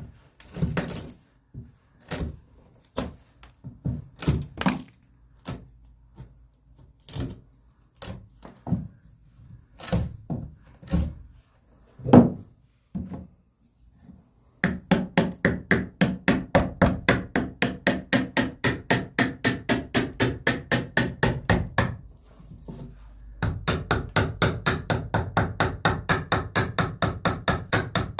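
Hammer knocking the thin leftover strips of wood out of a multi-kerf notch cut in a pressure-treated lumber crossmember, a series of irregular wooden knocks. About halfway through, a power saw starts running and its blade is worked sideways across the bottom of the notch to smooth it, giving a fast even rasping of about five strokes a second that stops briefly and then starts again.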